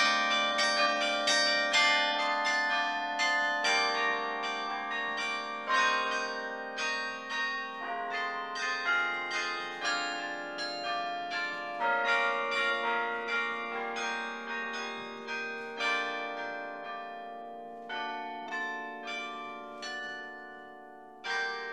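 Carillon bells played from the baton keyboard: a quick melody of struck bell notes over lower bells that keep ringing beneath. Near the end a last strike rings out and dies away.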